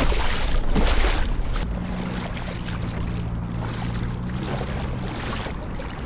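Water rushing and splashing along the hull of a moving kayak, with wind buffeting the microphone, loudest in the first second and a half. A steady low hum runs under it from about one and a half seconds in until about five seconds.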